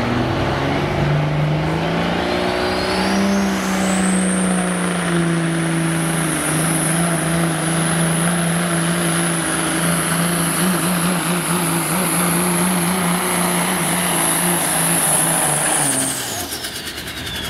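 Mack semi truck's diesel engine under full load pulling a sled: its pitch climbs over the first few seconds and then holds steady, with a turbo whistle rising to a high, steady whine. Near the end the engine drops off and the turbo whine falls away.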